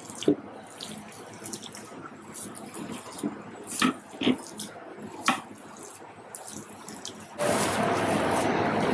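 Hands squeezing and pressing a thick leafy batter on a steel plate, with soft squelches and a few light knocks against the plate. About seven seconds in, a steady rush of running water starts suddenly and carries on.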